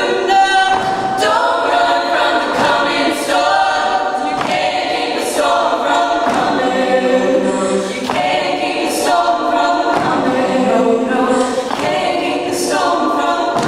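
All-female a cappella group singing: a lead voice over close-harmony backing voices, with no instruments.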